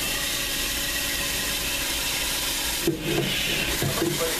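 Steady rushing background noise of a commercial fast-food kitchen.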